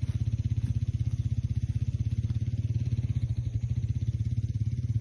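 An engine running steadily at low speed with a fast, even low throb, working under load while dragging a sunken boat.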